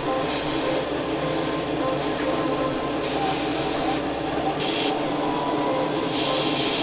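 Airbrush spraying paint onto a plastic model kit, its hiss starting and stopping several times as the trigger is worked, over a steady hum.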